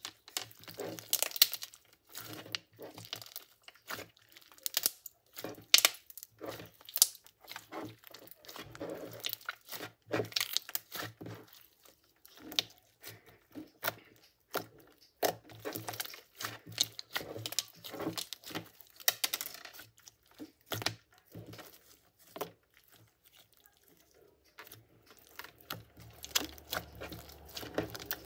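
Thick glossy slime being stretched, folded and pressed by hand, giving off irregular sharp clicks, pops and crackles. The sounds grow sparser and quieter in the last few seconds.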